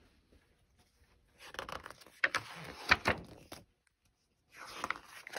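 Pages of a picture book being turned and handled: paper rustling with a couple of sharp snaps, in two bursts with a short pause between.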